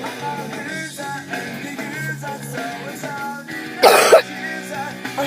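A person's harsh cough from a cold, one burst of two quick hacks about four seconds in, over steady background music.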